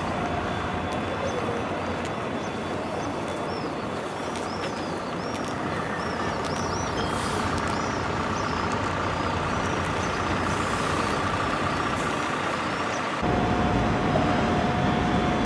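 City street traffic with buses: a steady rumble of engines and road noise, with faint high chirps in the middle. About 13 s in it gets louder and a steady hum joins.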